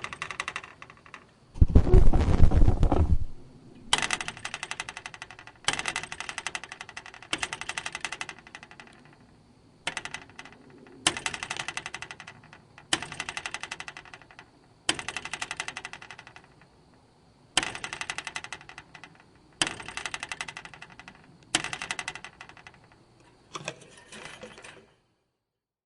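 A screen door's coil spring is plucked and stretched hard over and over, buzzing and rattling in about a dozen separate twangs of roughly a second each. One twang about a second and a half in is louder and much deeper than the rest. The last twang dies away shortly before the end.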